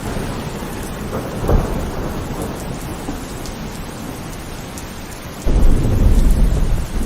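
Heavy rain falling steadily, with a brief rumble of thunder about a second and a half in and a louder, deep rumble of thunder starting suddenly about five and a half seconds in.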